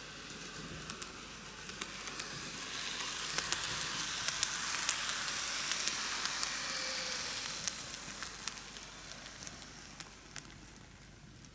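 N-gauge model train (Micro Ace Seibu 4000 series, four cars) running by on the track. A hissing whir of motor and wheels grows louder toward the middle as the train nears and then fades, with scattered sharp clicks of the wheels over the rail joints.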